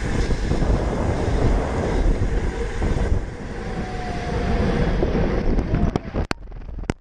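Wind rushing over a bicycle-mounted GoPro at about 28 mph while the rider coasts. Near the end the rushing drops away and two sharp knocks follow as the camera breaks loose from its mount and hits the road.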